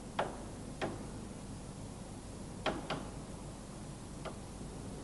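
Staples being pried out of a convertible-top corner bow with a pointed tool: about five short, sharp clicks spread over a few seconds, two of them close together, over a faint steady hiss.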